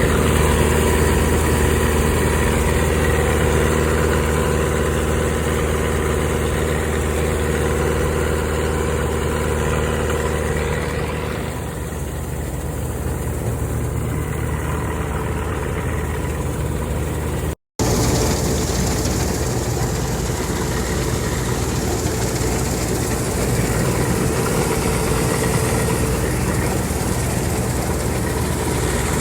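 Old Clayson M122 combine harvester running steadily. About two-thirds of the way through the sound cuts abruptly to a noisier, hissier run of the machine.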